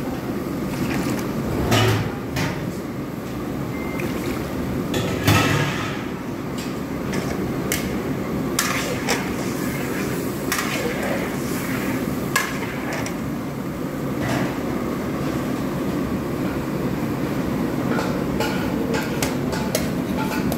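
Metal spatula knocking and scraping against a large steel paella pan of simmering broth: a scattering of sharp clicks, the loudest about two and five seconds in, over a steady low rushing noise.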